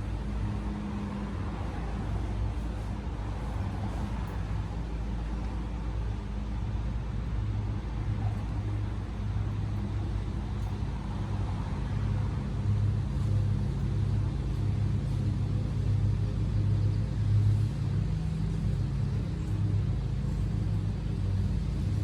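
Steady low outdoor rumble of the kind made by traffic or machinery, getting slightly louder about halfway through.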